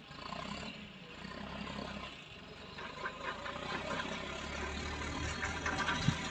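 Tractor engine running steadily as the tractor with its loaded front-loader bucket drives closer, growing louder from about halfway in, with a sharp knock near the end.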